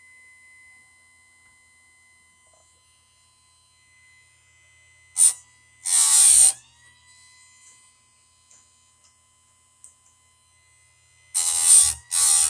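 Electric chainsaw-chain grinder with its motor running and a faint steady whine. The wheel grinds a tooth briefly about five seconds in and again for a little over half a second, then near the end makes a quick series of short grinding passes, the extra work a chipped tooth needs.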